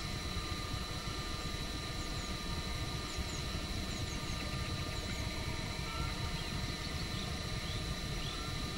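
A steady low rumble under a constant high hiss, with short, high bird-like chirps appearing here and there from about two seconds in.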